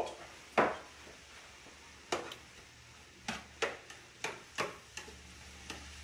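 Salt shaker shaken over the vegetables in about eight short, sharp shakes, the loudest about half a second in and the rest coming in quick pairs later on. Underneath is a faint steady sizzle of scallops searing in the pan.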